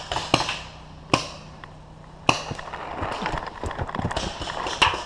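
Sharp pops of paintball markers firing: two about a second apart, then a louder one a little over two seconds in. After it comes a stretch of scuffing and rustling in dry leaves, full of small cracks.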